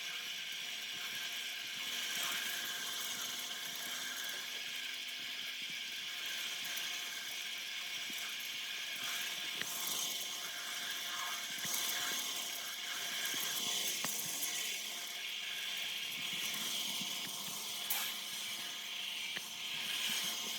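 Steady mechanical noise of machinery running, mostly high-pitched, with a few light clicks.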